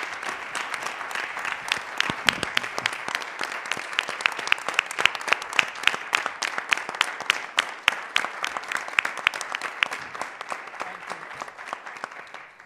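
Audience applauding, with one person's claps loud and close to the microphone standing out, about three a second. The applause dies away near the end.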